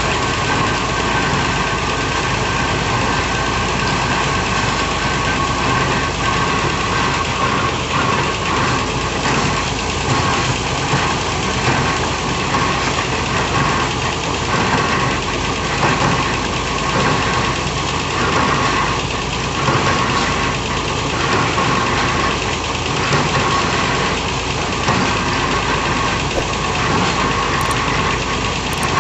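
Hydraulic piling rig's diesel engine running steadily with a high whine. From about eight seconds in, the sound pulses regularly about once a second.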